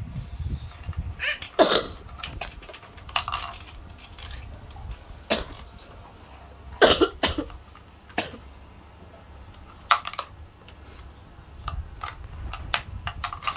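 Scattered clicks, taps and knocks of metal tools and parts on a small red child's bicycle being assembled, a handful of them louder and sharper than the rest.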